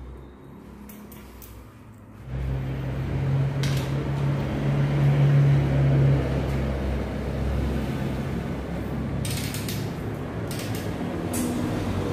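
Bicycle rear wheel being fitted into the frame, with mechanical clicks and rattles from the chain, cassette and axle hardware. A steady low hum comes in about two seconds in and stays under the handling noise.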